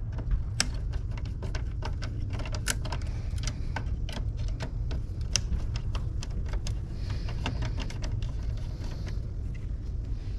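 Irregular clicks and small metallic taps of a screwdriver working on circuit breakers in a residential electrical panel while a breaker is taken out, over a steady low rumble.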